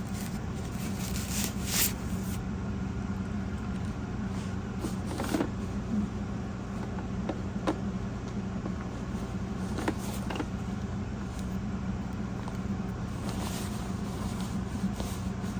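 Electric sewing machine running steadily as it stitches a new seam through a pillow's fabric: an even motor hum with a few light clicks.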